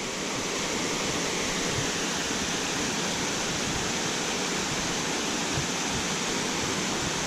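Waterfall pouring into a deep pool: a steady, unbroken rush of falling water.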